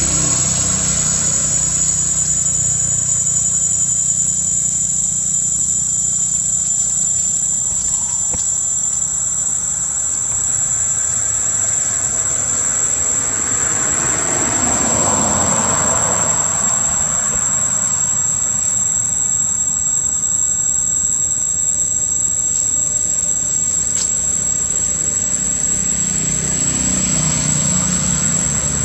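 Low, steady rumble of a motor vehicle's engine running, swelling for a few seconds around the middle as if a vehicle passes, under a constant high-pitched whine.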